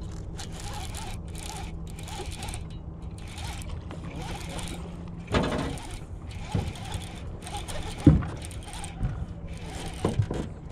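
Baitcasting reel being cranked while reeling in a hooked fish, its gears whirring in short repeated bursts about twice a second. A few dull thumps come through, the loudest about eight seconds in.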